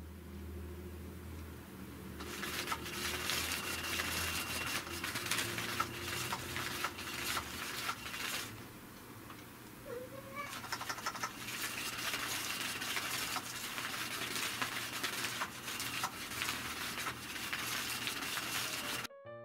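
Catch Me If You Can 2 electric cat toy running in automatic mode: its motor-driven wand sweeps around under the fabric cover, scratching and rustling against it with a faint motor whine. It starts about two seconds in, stops for about two seconds midway, then runs again.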